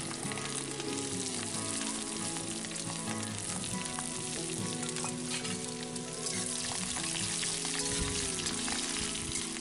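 Garlic cloves and whole garlic heads sizzling steadily in hot mustard oil in a kadhai. Near the end a metal spatula stirs and scrapes through them.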